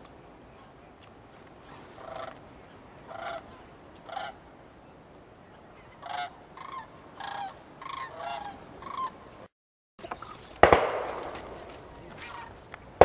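Geese honking in a string of short calls, then a single loud shotgun shot about eleven seconds in, with a long fading tail.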